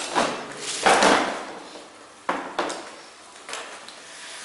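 Tools and the plastic carry case of a Bosch GSB 550 drill kit being handled, making a few irregular clattering knocks and rustles. The loudest comes about a second in.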